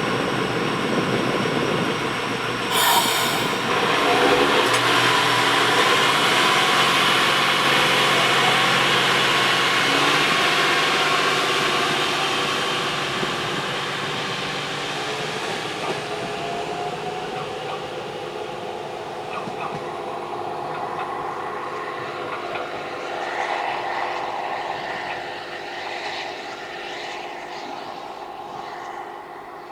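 Diesel local train running on the rails, its engine note and wheel noise steady at first, then fading steadily as it moves away. A short sharp hiss comes about three seconds in.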